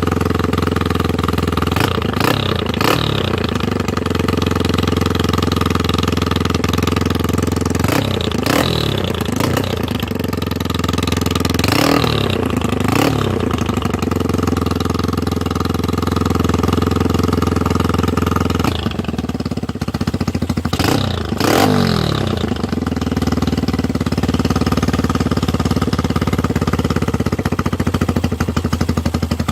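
Honda Sonic motorcycle engine running through a homemade exhaust with a perforated core pipe. It idles steadily and is revved in short throttle blips several times, each falling back to idle.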